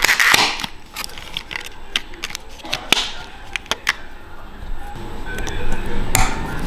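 A clear plastic blister pack crinkling and crackling as it is opened and handled, with scattered sharp clicks and taps as a new metal clipper blade is taken out. The loudest crackle comes right at the start, with shorter ones about three and six seconds in.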